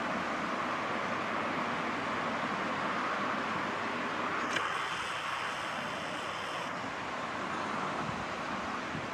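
A train rolling past with a steady rumble and hiss. About halfway through, a click is followed by a high-pitched metallic squeal that lasts about two seconds.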